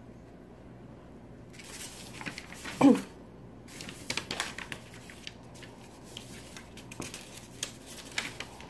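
Yarn being handled and pulled loose, with soft rustling and light clicks from the crochet hook and a plastic stitch marker. About three seconds in there is a short, loud voice-like sound.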